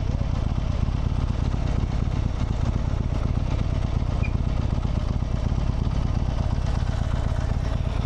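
Harley-Davidson Sportster's V-twin engine running at a steady speed while the bike is ridden, with no revving or shifting.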